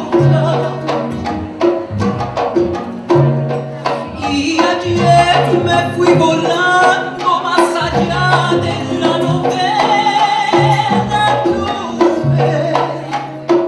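Live Latin song played on batá drums, double bass and acoustic guitar, with a voice singing: sharp hand-drum strokes over held low bass notes.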